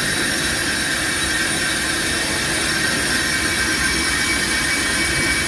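A brake lathe skims the face of a Toyota Avanza's brake disc as the disc turns. It makes a steady metallic scraping with a high, ringing squeal. The disc is being re-machined because it is badly warped, and the warp is what made the caliper knock as the car braked.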